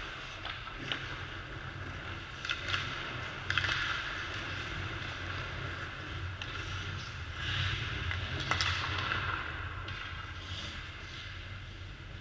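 Ice hockey practice: skate blades scraping and hissing on the ice, with several sharp clicks of sticks striking pucks, over a steady low hum of the rink hall.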